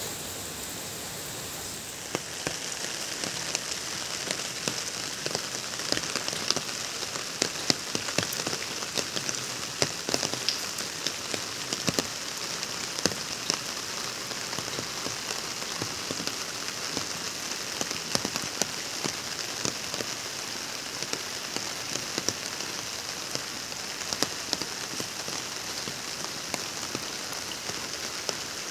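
Steady rain falling: an even hiss with many sharp separate drops ticking through it.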